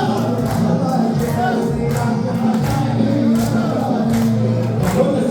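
Arabic wedding music: male voices singing over percussion with a steady beat, and sustained low accompaniment underneath.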